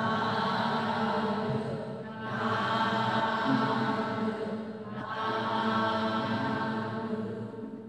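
Buddhist devotional chanting in three long, drawn-out phrases, each held on a steady pitch for two to three seconds.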